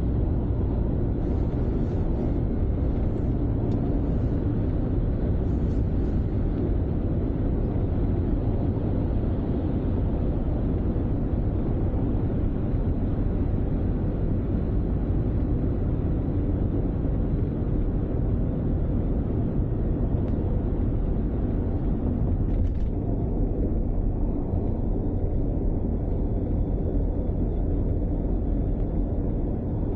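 Steady low rumble of a car driving on an expressway: road and engine noise at an even level.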